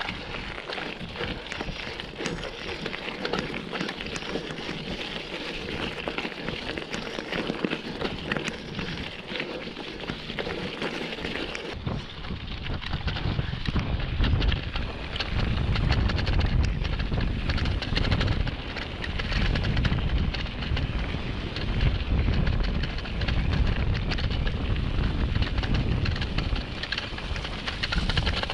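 Mountain bike ridden along a dirt trail: tyres crackling over the ground and the bike rattling, with wind buffeting the action camera's microphone. About twelve seconds in the sound changes abruptly and the low wind buffeting grows much louder.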